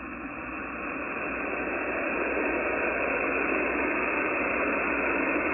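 Hiss and static from an ICOM transceiver's speaker on an open single-sideband CB channel (38 LSB) with no station transmitting. It grows louder over the first two seconds, then holds steady.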